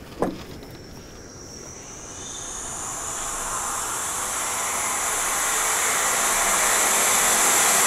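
A hissing noise drone, like a distant jet, swells slowly and steadily louder from about a second and a half in. It is an electroacoustic sound-design swell for a horror film.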